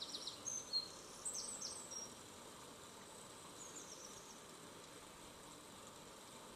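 Faint, short high-pitched chirps, a cluster in the first two seconds and a few more a little before the middle, over a quiet steady background hiss.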